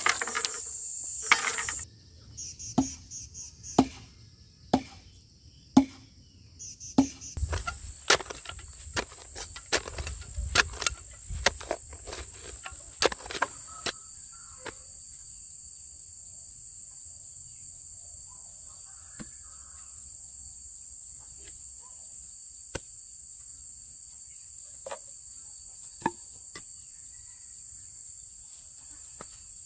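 A steady, high-pitched insect chorus trilling throughout, with a run of sharp knocks. The knocks come evenly about once a second at first, then quicker and irregular, and stop a little under halfway through. Only a few single knocks follow.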